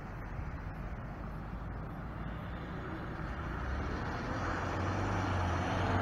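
Semi truck's diesel engine and tyres approaching along the highway, growing steadily louder, with the low engine note strengthening near the end.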